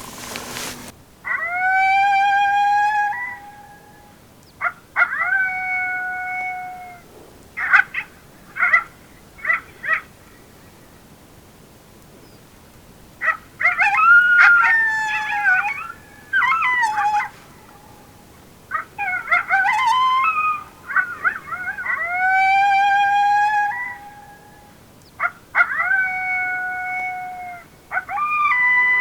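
Electronic predator call playing recorded coyote vocalizations to call in coyotes. A long howl rising then held comes first, then shorter howls and a run of quick yips. About 13 s in comes a yipping, howling chorus. Near the end the same long howl and chorus sequence repeats.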